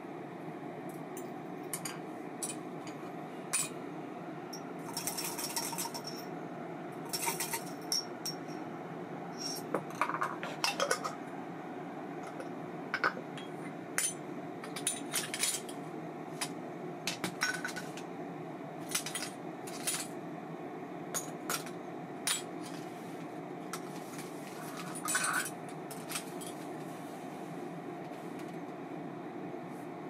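Small metal parts and tools being handled on a workbench: irregular light metallic clicks and clinks, a few ringing briefly, over a steady low hum.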